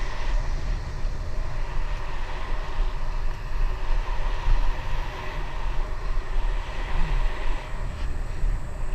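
Wind buffeting an action camera's microphone on a moving bicycle, a steady low rumble, with the tyres running on an asphalt path.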